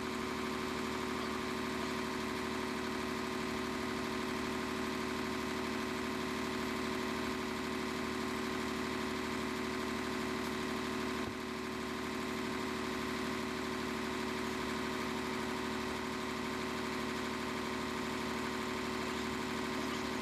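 An engine idling steadily, a constant hum that holds one pitch throughout.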